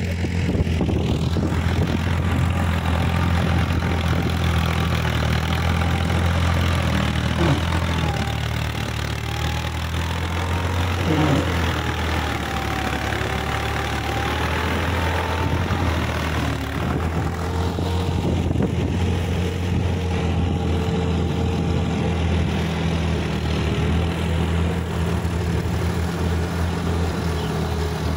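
Diesel tractor engines running steadily as they work a wet paddy field, a continuous low drone with no letup.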